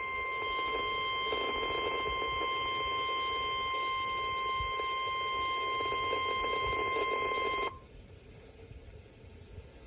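NOAA Weather Radio 1050 Hz warning alarm tone, one steady high-pitched tone over radio static, which cuts off suddenly about eight seconds in, leaving faint receiver hiss. The tone signals that a warning message, here a severe thunderstorm warning, is about to be broadcast.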